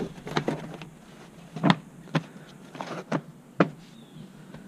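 About seven sharp knocks and clicks at irregular intervals, from interior panels and fittings being handled in the rear cargo area of a Toyota Land Cruiser Prado.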